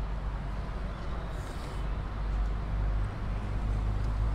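Steady low rumble of outdoor background noise, with a faint hiss about a second and a half in.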